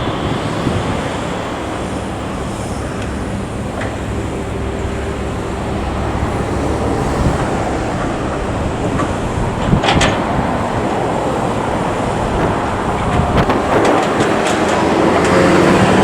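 Excavator's diesel engine and hydraulics running steadily under work, with sharp metallic knocks about ten seconds in and a run of clanks near the end, as a rising whine builds.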